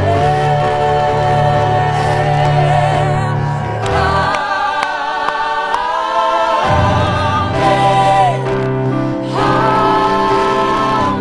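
Christian worship song sung by a group of voices together over long held low accompaniment notes, which drop out for a few seconds in the middle and then return.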